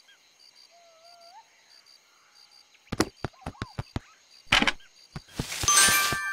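Cartoon sound effects: faint jungle bird chirps over a quiet background, then a quick run of sharp clicks or taps about three seconds in, followed by two rushing swishes, the second with a bright chime-like ringing near the end.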